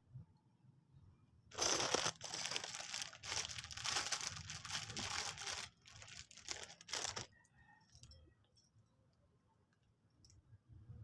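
LEGO toy packaging being torn open and crumpled by hand: a run of noisy rips lasting about five seconds, starting a couple of seconds in, with a brief pause near the end.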